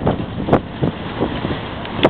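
Strong gusty wind buffeting the microphone: a steady rush broken by irregular thumps as gusts hit.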